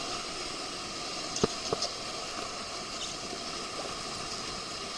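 Whitewater of a river rapid rushing steadily, with two brief knocks about a second and a half in.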